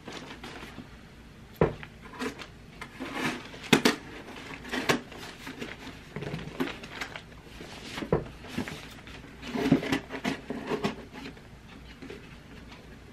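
A cardboard shipping box being cut open and handled: packing tape being cut, with an irregular string of knocks, taps and scrapes of cardboard.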